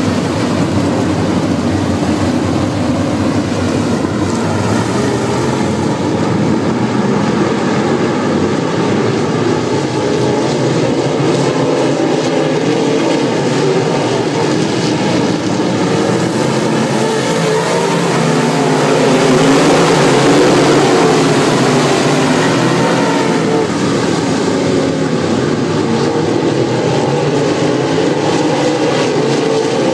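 A field of UMP dirt modified race cars racing, their V8 engines running hard together in one continuous loud drone. It swells as the pack passes closest, about twenty seconds in.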